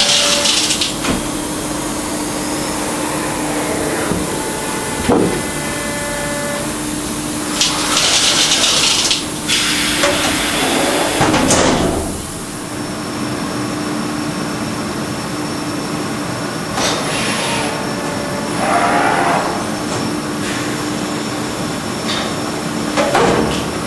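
Automatic pallet change on a GF AgieCharmilles HPM 1000U milling machine: a steady machine hum with several bursts of hissing and a few sharp clunks as the pallet is moved and clamped.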